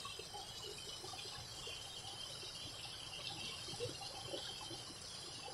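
Low, steady rush of water spilling over a small weir into a stream, with a thin high insect chirring above it.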